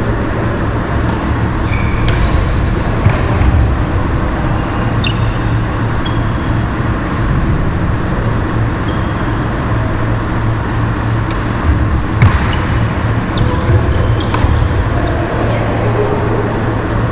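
Badminton rally over a loud steady low hum: a few sharp clicks of rackets striking the shuttlecock, and short high squeaks of shoes on the wooden court.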